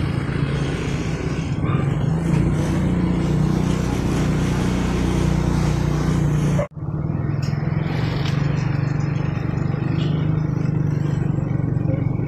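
Motorcycle engine running steadily at riding speed, with wind and road noise heard from the bike itself. The sound cuts out for an instant just past halfway, then carries on as before.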